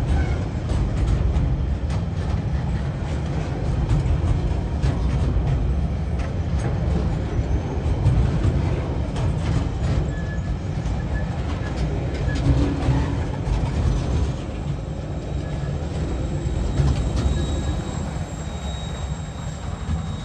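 Container freight train wagons rolling past: a steady low rumble of steel wheels on rail, with scattered clicks of wheels over rail joints. It eases a little about two-thirds of the way through as the last wagons go by, and a faint high-pitched wheel squeal comes in near the end.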